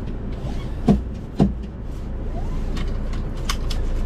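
A vehicle engine idling with a steady low rumble. Two sharp knocks come about a second in, and a few light clicks follow around three seconds.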